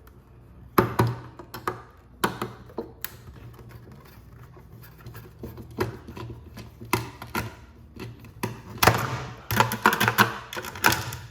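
Irregular clicks, taps and knocks of tools and parts being handled while a screw is taken out of the subwoofer's electronics, with a denser run of scraping and clattering near the end.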